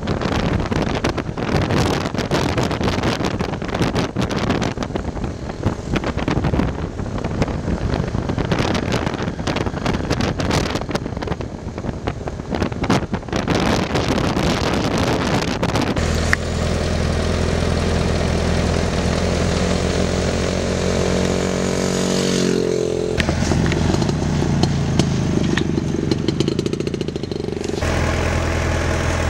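Motorcycle engine running while riding, with heavy gusting wind on the microphone over the first half. About halfway through the wind drops away and a steady engine note is heard, its pitch falling about two-thirds of the way in as the engine slows.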